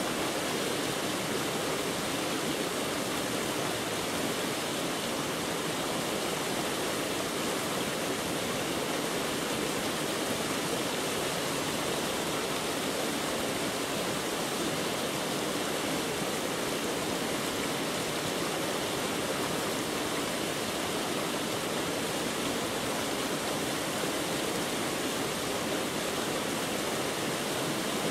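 Steady, even rushing noise that does not change or break.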